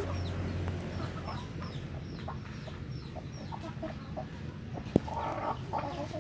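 Free-range village chickens clucking and calling, with a quick run of short, high, falling chirps through the first half. A single sharp knock about five seconds in, then a few lower clucks.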